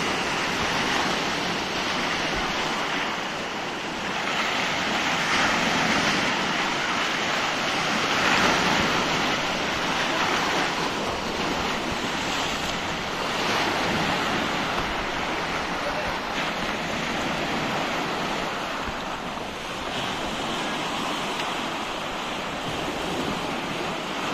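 Sea surf breaking and washing over a shallow reef shore, a steady rushing that swells and eases as waves come in. Wind buffets the microphone.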